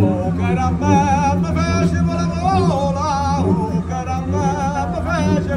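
Man singing in a wavering voice with vibrato, over the low, pulsing grunt of a cupa-cupa friction drum played with a stick.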